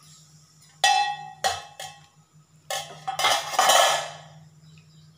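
Wooden spatula knocking against a steel pot: four ringing clanks in the first three seconds, then about a second of stirring through the thin dal stew, the spatula scraping and clinking the pot.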